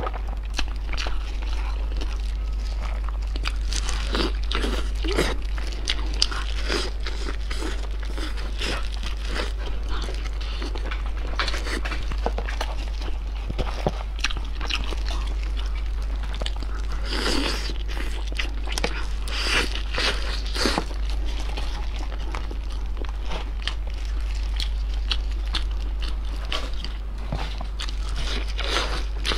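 Close-miked crackling and crunching of a whole roast chicken being torn apart by gloved hands, its skin and joints snapping and tearing, with chewing near the end. A steady low hum runs underneath.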